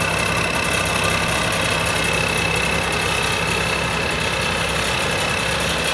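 Combine harvester's Hino J08C turbo diesel engine running steadily, with a constant high whine over the engine drone.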